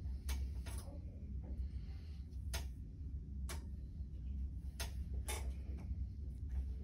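A handful of sharp, irregular clicks and light taps from small objects being handled at a counter, over a steady low room hum.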